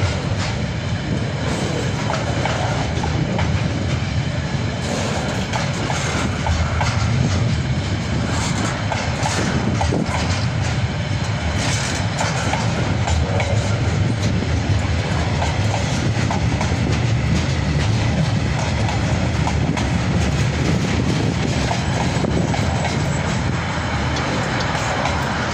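KiwiRail freight wagons loaded with open-top bulk containers rolling past at close range: a steady rumble of steel wheels on rail, with scattered clicks as the wheels cross rail joints.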